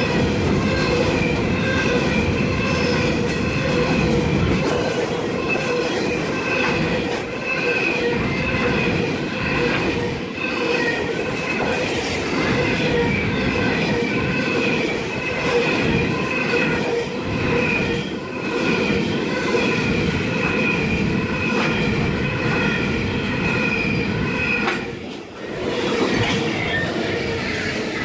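A freight train's wagons rolling past at close range, their wheels squealing with several steady high-pitched tones over the rumble and clickety-clack of the wheels on the rails. The squeal is what marks it as a freight train. Near the end the sound briefly drops, then picks up again.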